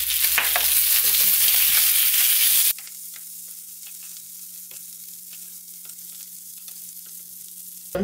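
Dried yellow croakers sizzling as they fry in oil in a nonstick pan, with a wooden spatula and spoon scraping and clicking as the fish are turned. The sizzle cuts off suddenly about a third of the way in, leaving a much quieter low steady hum with faint clicks.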